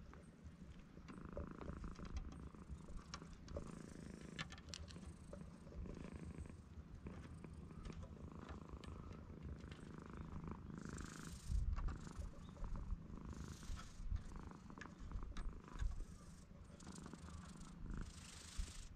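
Domestic cat purring steadily while being stroked.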